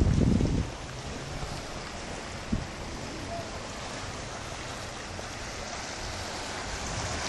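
Calm sea water lapping among shoreline rocks, a steady hiss. Wind buffets the microphone with a low rumble in the first half-second, and there is a single brief thump about two and a half seconds in.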